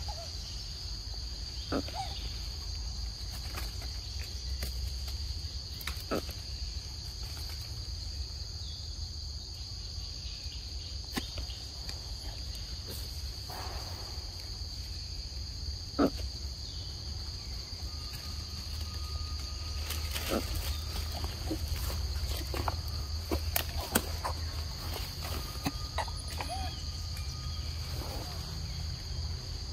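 Insects droning in a steady high-pitched chorus, with scattered small clicks and rustles and a low rumble underneath.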